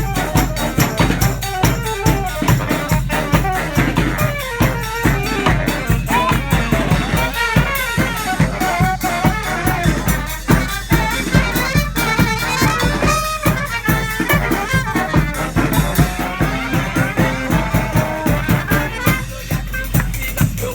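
Street marching band of horns and drums playing an upbeat tune over a steady, driving drum beat.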